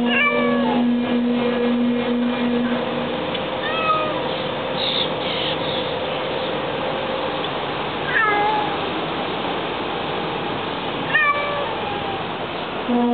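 Domestic cat meowing four times from inside a plastic pet carrier, each meow short and falling in pitch, over the steady hum of a car's interior.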